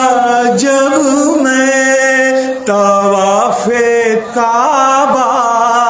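A man singing an Urdu devotional verse (naat) in long, held, ornamented notes, with short breaks between phrases.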